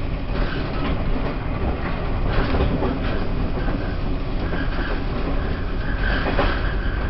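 Taiwan Railways E1000 push-pull Tze-Chiang express running along the line, heard inside a passenger car: steady running noise of wheels on rails, with faint clicks now and then.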